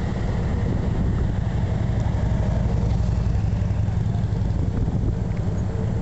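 Wind buffeting the camera's microphone: a steady, fluttering low rumble.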